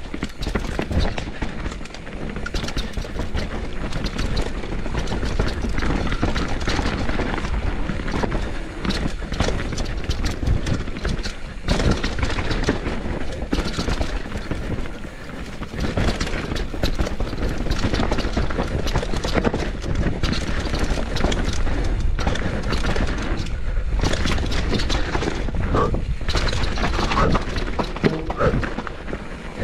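Canyon Torque mountain bike descending a rough dirt trail at speed: tyres rumbling over the ground and a constant rattle of the chain and frame as it hits roots and stones, with wind buffeting the microphone.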